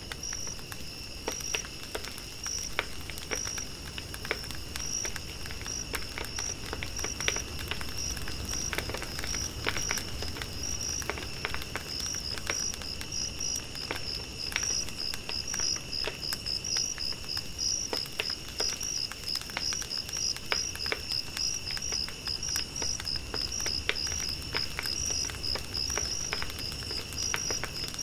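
Crickets chirping in a steady, evenly repeating high-pitched rhythm that turns to a faster pulsing about halfway through, over the crackle and pops of a campfire.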